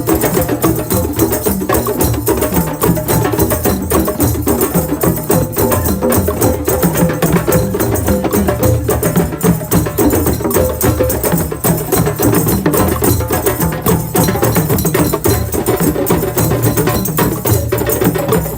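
Drum circle: many hand drums playing a dense, steady rhythm together, with wooden clicks and jingles over the beat.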